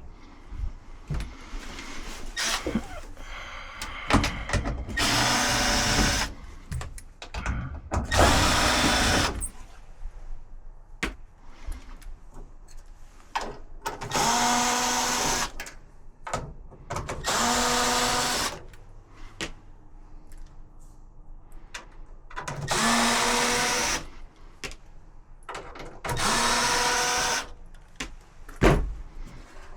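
Power drill-driver running screws in about six short bursts of a second or two. The motor's whine rises in pitch as each burst starts. Light clicks and knocks of screws and panels come between the bursts.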